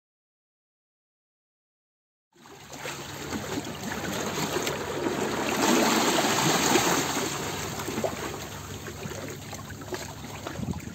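Running water, fading in after about two seconds of silence, loudest around the middle and fading out near the end.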